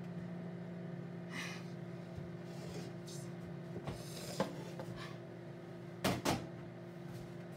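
Kitchen handling sounds: soft cloth rustles and small clicks as the hands leave an inverted aluminium cake tube pan resting on a glass, then two sharp knocks a fraction of a second apart about six seconds in, like a cupboard door shutting, over a steady low hum.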